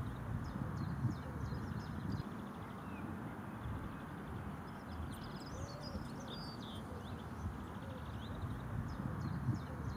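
Early morning bird song: several birds chirping and trilling in short scattered phrases, faint over a steady low rumble.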